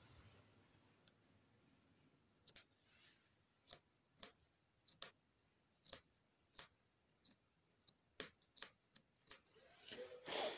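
Small craft scissors snipping loose thread ends on punch-needle embroidery: about fifteen sharp snips at irregular intervals, some in quick pairs, while the work is being finished off. A short rustle comes near the end.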